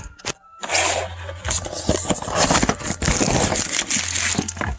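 Plastic packaging crinkling and tearing as new gas trunk struts are unwrapped, with irregular rustling and scraping.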